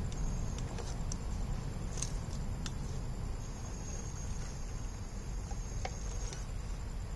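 A 1/10-scale RC rock crawler crawling slowly up a boulder: scattered small ticks over a steady low rumble, with a thin, steady high tone for about three seconds in the second half.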